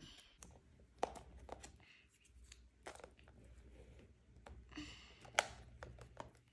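Faint, scattered clicks and rustles of plastic food-container lids being handled and paper price labels being peeled and pressed onto them. The sharpest click comes about five seconds in.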